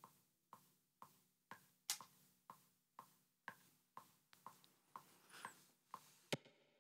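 Faint, evenly spaced ticks, about two a second, with a louder tick near the end.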